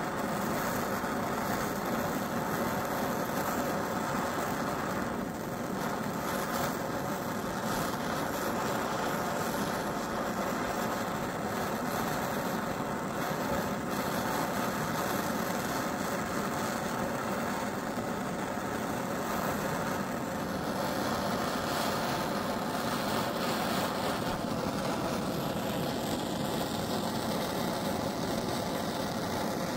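Handheld gas torch burning with a steady hiss, its flame held on a steel chainsaw exhaust deflector to burn carbon off it.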